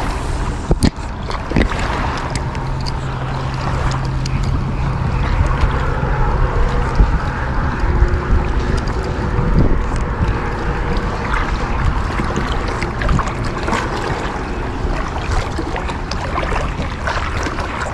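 Wind buffeting the microphone over small waves lapping in the shallows, with a low steady hum for several seconds in the first half.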